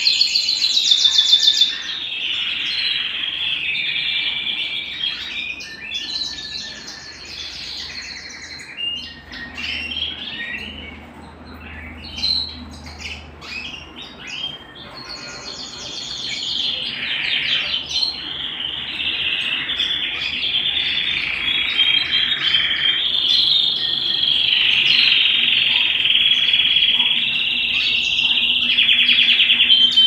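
Domestic canary singing a long, continuous song of fast trills and rolls. It is softer and broken for a stretch in the middle, then fuller and louder again in the second half.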